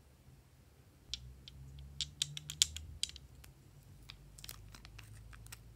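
Red foil candy wrappers crinkling as they are handled in the hand: a run of sharp, irregular crackles starting about a second in.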